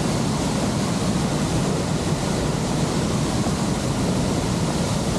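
Waterfall and its fast-flowing stream rushing, a steady loud noise of strongly flowing water.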